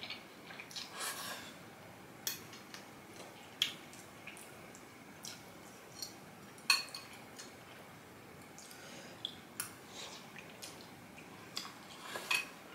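Quiet eating sounds: a fork clicking against a glass bowl of pasta now and then, with soft wet chewing and slurping in between.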